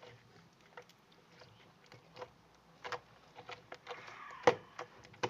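Homemade slime being handled: scattered sticky squelches and small pops, with a sharper click about four and a half seconds in.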